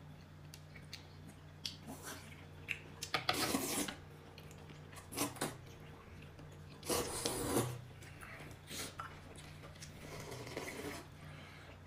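Utensils tapping and scraping against bowls during a meal, with a few short noisy bursts. A low steady hum runs underneath.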